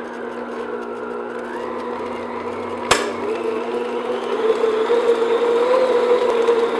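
Electric stand mixer beating cream cheese and mascarpone with its paddle attachment in a glass bowl, its motor running with a steady tone. A sharp click comes about three seconds in, and the mixer runs a little louder after it.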